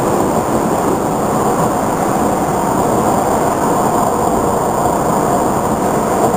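Nanjing Metro airport-line train running at speed, heard from inside the passenger car: a steady, unbroken running noise of wheels on rail.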